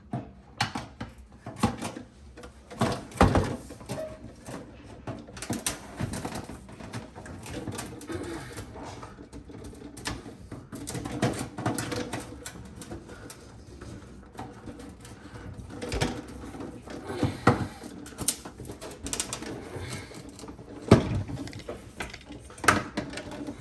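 KitchenAid dishwasher parts being handled and pressed together by hand: irregular clicks and knocks as clips are snapped into place.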